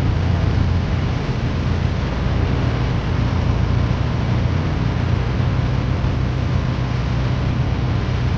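Tractor engine running steadily with a deep hum, mixed with a steady rushing noise.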